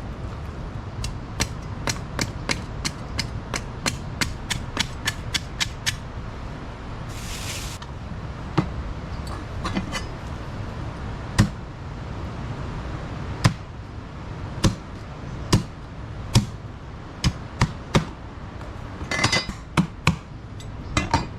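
Kitchen knife chopping through a large fish's fins and tail on a cutting board: a quick run of sharp clicks, then slower, louder knocks, with brief scraping twice.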